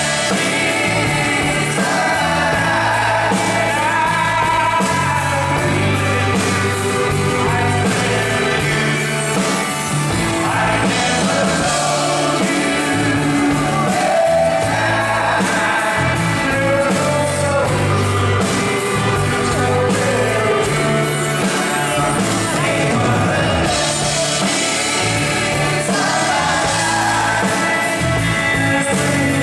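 Live band music: sung vocals over acoustic and electric guitars with a steady bass line.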